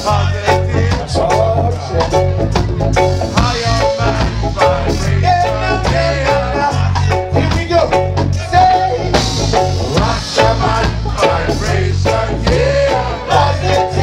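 Live reggae band playing: electric bass, keyboard and hand percussion under a sung lead vocal.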